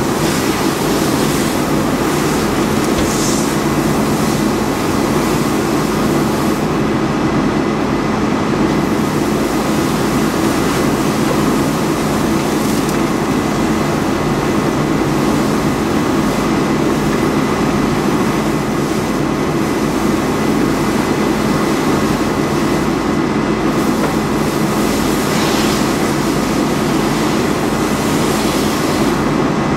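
Steady loud rumble and hiss of a fire hose stream dousing a burning car and sending up steam, over the steady drone of a running engine.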